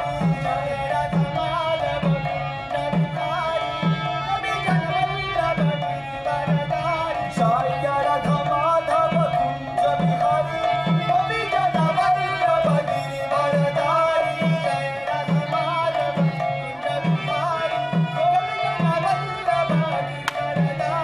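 Kirtan music: a mridanga, a two-headed barrel drum, beats a steady rhythm of about one stroke a second while a harmonium plays a sustained melody over it.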